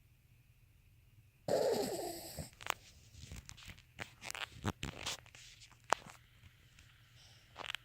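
Sleeping Yorkshire terrier snoring: one loud snore lasting about a second, starting about a second and a half in, then a run of irregular smaller snuffles and sharp clicks.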